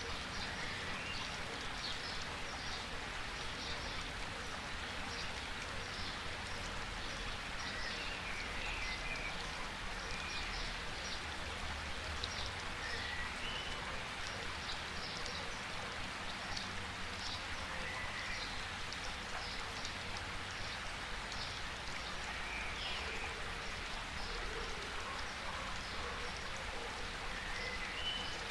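Steady rain falling, with a dense patter of drops and a few short bird chirps now and then.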